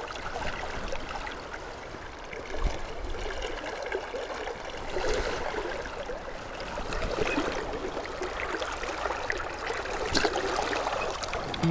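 River water rushing and gurgling close around a wading angler, with a few brief splashes.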